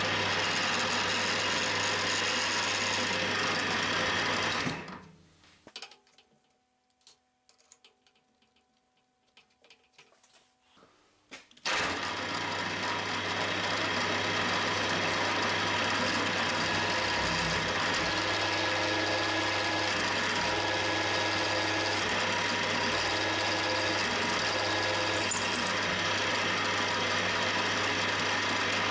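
Milling machine running with the cutter machining a metal soft jaw: a steady machine hum and cutting noise. About five seconds in the sound dies away to near silence for about six seconds, then comes back suddenly and runs on steadily.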